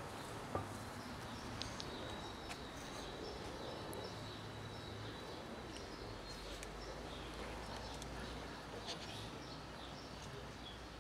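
Kittens and a cat crunching dry kibble: faint, scattered crunching clicks over a steady background hum. A thin, steady high tone sounds for about three seconds, starting about two seconds in.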